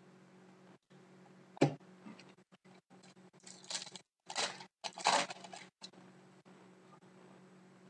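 Trading cards being handled: a sharp knock about a second and a half in, then a few short rustling bursts of cards sliding and shuffling through the middle.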